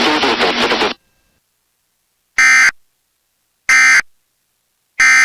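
Emergency Alert System end-of-message (EOM) data burst: three identical short, harsh digital squawks of the SAME frequency-shift-keyed signal, about 1.3 s apart. It signals the end of the alert.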